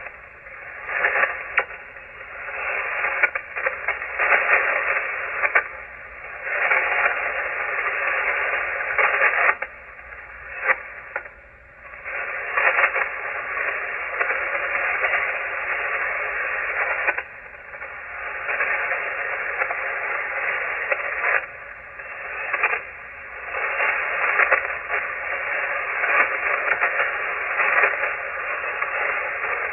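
Shortwave receiver static on the 40-meter ham band: hissing, crackling noise that swells and fades, with brief dips about 11 and 17 seconds in.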